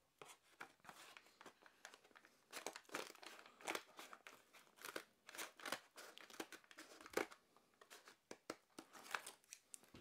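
Westcott soft-grip scissors cutting through the card backing of a blister pack: a faint, irregular run of short crunchy snips.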